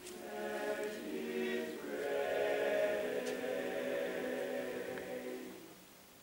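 Male a cappella choir of high-school boys singing slow held chords without accompaniment, the sound dying away near the end.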